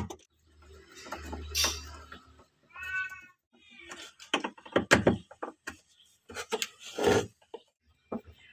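A cat meows briefly twice in the first half. This is followed by a run of sharp knocks and clicks as a screwdriver and lamp sockets are handled on a plywood board; the loudest come about five and seven seconds in.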